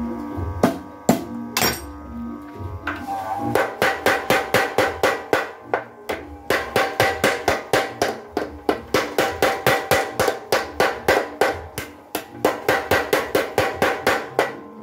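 A few separate hand-hammer blows on hot steel on an anvil, then, from about three and a half seconds in, a mechanical power hammer pounding the red-hot blade in a fast, even run of blows, about four or five a second, broken by two short pauses.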